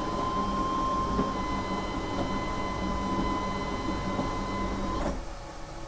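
Stepper motor of a 3D-printed mower unit's cutting-height adjuster whining steadily as it drives the cutting knife to the zero-height setting, then stopping abruptly about five seconds in.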